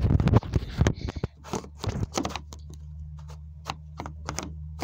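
Handling noise from a phone: irregular clicks and rubbing as it is moved in the hand, close to its microphone, loudest in the first second or so. A steady low hum runs underneath from about a second in.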